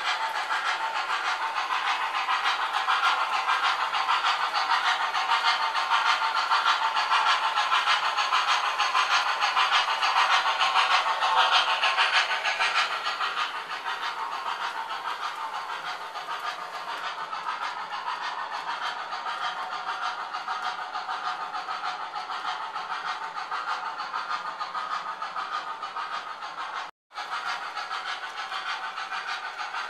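Two MTH model steam locomotives running together on the track: a steady mix of their sound-system steam effects and the rolling rattle of wheels and motors. It is louder for the first dozen seconds, then eases off, and cuts out for an instant near the end.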